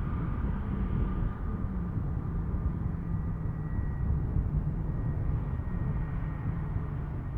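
Airliner jet engines running, a steady low rumble with a faint high whine that fades as the aircraft moves away.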